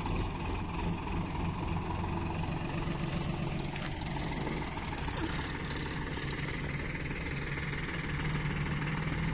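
Solis tractor's diesel engine idling steadily.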